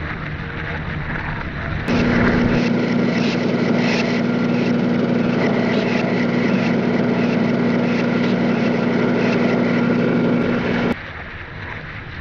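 A steady, machine-like drone with a constant hum cuts in abruptly about two seconds in and cuts off just as abruptly near the end, over a background of wind-like noise.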